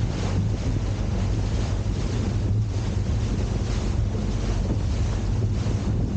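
Fairline Targa 38 motor cruiser under way: a steady engine drone with water rushing off the hull and wind buffeting the microphone.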